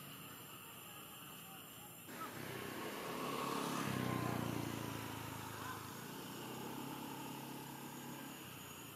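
A motor vehicle's engine passing by. It comes in suddenly about two seconds in, is loudest around four seconds, and fades away.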